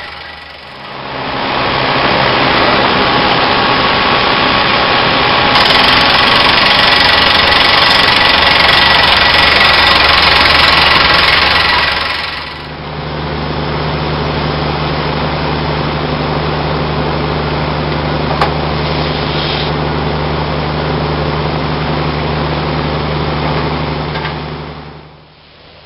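Engine of a small tracked drill rig running, with a loud rushing, hissing noise over it for the first half that stops about halfway through. After that the engine runs on steadily with a low hum until the sound drops away near the end.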